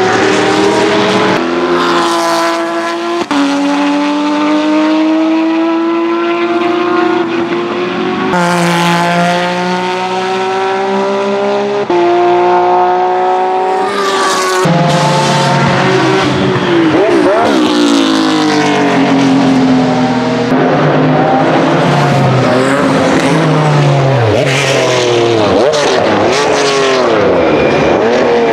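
Flat-six racing engines of Porsche 996 GT3 RS/RSR cars. For the first half one car accelerates hard, its note climbing and dropping back at each upshift, three or four times. From about halfway, cars brake into a corner: engine notes fall through downshifts with sharp throttle blips, two cars close together.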